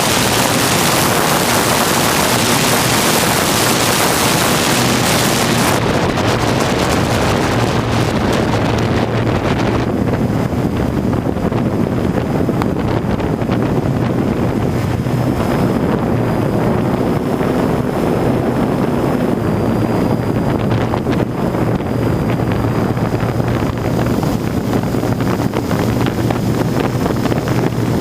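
Heavy wind buffeting the microphone, strongest for the first six seconds and easing off after about ten, over the steady hum of a hexacopter's electric motors and propellers.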